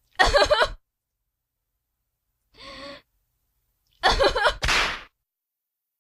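A girl crying out in short loud wails, with a quieter sob between them and a sharp breath straight after the last cry, as if in pain from a belt beating.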